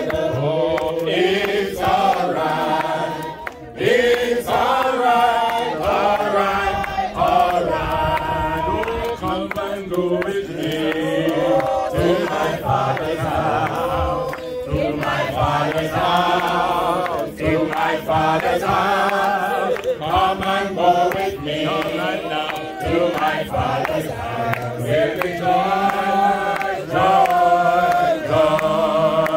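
A crowd of mourners singing a gospel hymn together, many voices at once, with a brief pause about three and a half seconds in.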